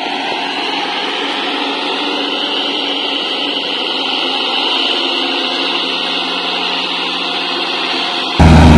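Kubota L4508 tractor's diesel engine running as the tractor works stuck in deep paddy mud, heard thin and muffled with no bass. About eight seconds in it jumps abruptly to a much louder, deeper engine sound.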